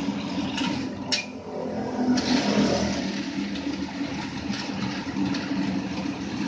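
Satay skewering machine running: a steady motor hum, with a couple of sharp clicks in the first second or so and a louder hissing stretch beginning about two seconds in.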